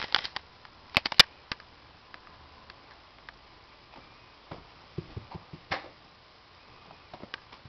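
A cat scampering and pawing on a hard floor while it plays fetch: scattered light taps and scuffs. There is a sharp cluster of clicks about a second in and another run of soft knocks around five seconds in.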